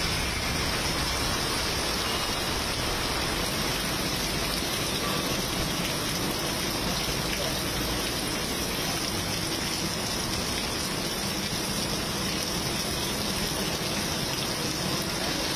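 Heavy monsoon rain pouring onto a wet road, a steady, even hiss of rain on pavement.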